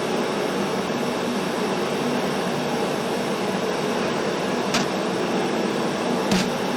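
Homemade twin-burner gas forge running with a steady rushing hiss. Two short sharp knocks sound near the end.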